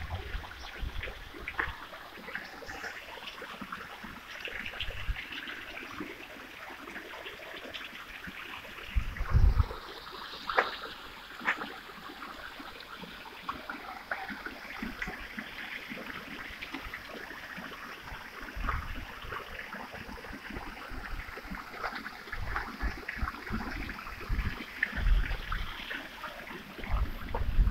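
Water from a tiered stone fountain splashing and trickling into its basin, a steady spattering, with a few brief low thumps along the way.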